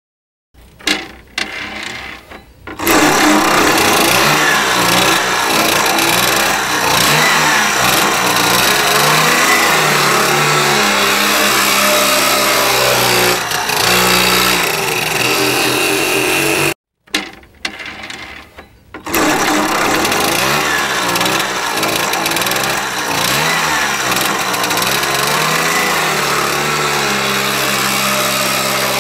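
Small moped engine of a front-loading cargo tricycle, first in a few short bursts and then running and revving up and down. The sound breaks off about halfway through and starts again with the same bursts before running on.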